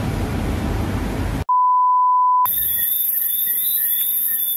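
Steady background noise cut off by a pure electronic beep tone, about a second long, set in dead silence as an editing effect; after it comes a loud high hiss with faint steady whistling tones.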